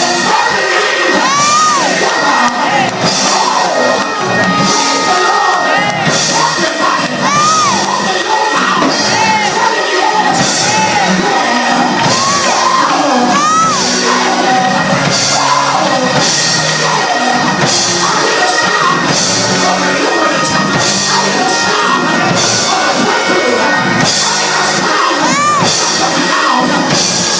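Loud gospel music in a church hall, with a congregation singing and shouting in praise over it. High crashes recur about every two seconds.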